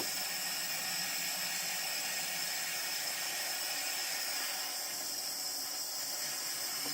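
Heat gun running steadily, its fan and element giving a constant hiss with a faint high whine, as it shrinks heat-shrink butt connectors on the float-switch wiring.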